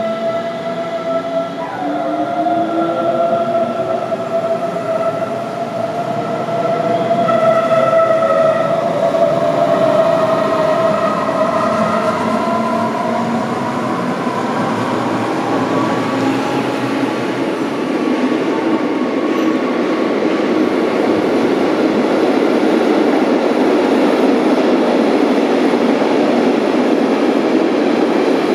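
Electric train accelerating, its traction motor whine rising steadily in pitch over about ten seconds. This is followed by a loud, steady rolling noise of wheels on rails as the train passes.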